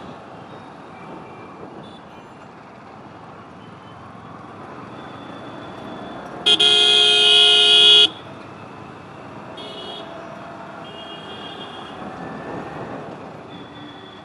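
A vehicle horn sounds loud and close for about a second and a half, about six seconds in, over steady traffic and road noise. Fainter horns toot a few times afterwards.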